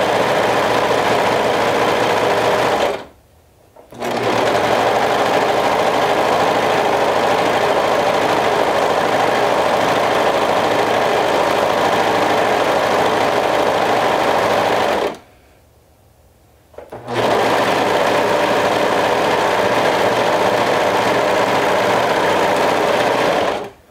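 Brother 1034D serger running steadily as it stitches a seam around a hood. It pauses briefly about three seconds in and again for about two seconds around the fifteen-second mark, then stops near the end.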